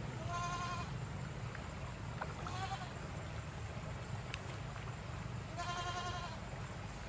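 Goat bleating three times in high, wavering calls, the middle one fainter, over a steady low rumble.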